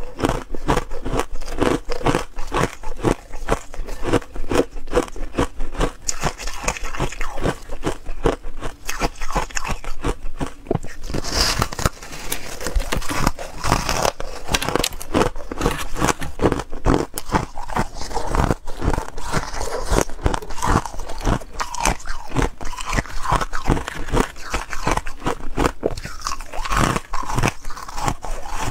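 Close-miked biting and chewing of pink foam ice: dense, irregular crunching and crackling as the brittle frozen ice breaks up in the mouth, many crunches a second.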